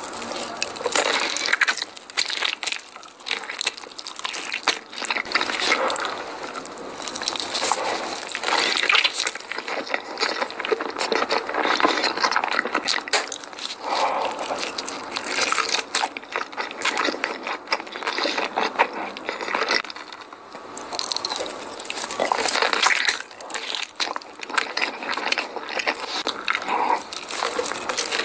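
Close-up wet chewing of spicy cheese-filled sausages: sticky, squishy mouth sounds with many small clicks, coming in uneven bursts as bites are taken and chewed.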